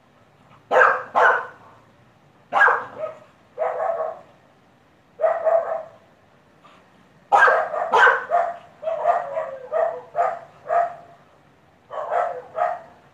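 Dog barking loudly and repeatedly: single barks and short runs of two or three, with pauses of a second or two, and a faster run of about six barks in the middle.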